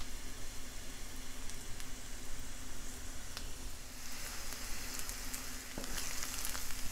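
Diced onions sizzling gently in butter in a cast-iron skillet. About four seconds in the sizzle grows brighter as a wooden spatula stirs them, with a few light clicks and scrapes against the pan.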